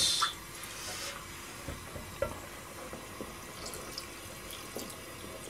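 A short rush of water run into a cooking pot at the very start, then faint clinks and small knocks of handling the pot over a low hiss.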